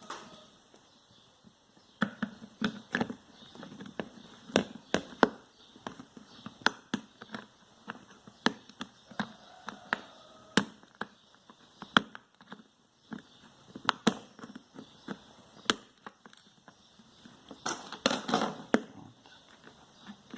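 Irregular sharp clicks and knocks of a small hand tool prying open a wire connector terminal, with a denser run of scraping clicks near the end.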